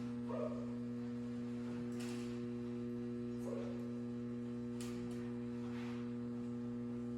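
Steady electrical mains hum, with a few faint brief sounds over it.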